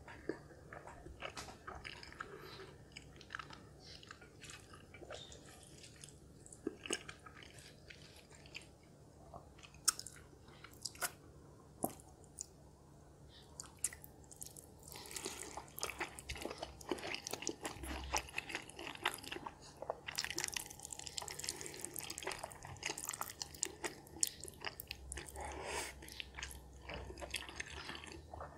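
A person eating instant noodles close to the microphone: wet chewing with scattered small clicks, growing louder and busier from about halfway through as mouthfuls of cheesy carbonara fire noodles are slurped in and chewed.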